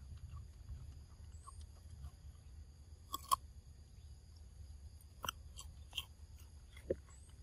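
A macaque biting and chewing a crisp green vegetable, with four sharp crunches: a double crunch about three seconds in (the loudest), then single ones at about five, six and seven seconds.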